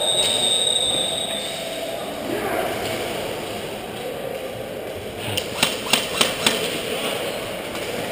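Airsoft guns firing: about five sharp shots in quick succession over roughly a second, a little past halfway through. A high steady tone, like a whistle, stops about a second and a half in.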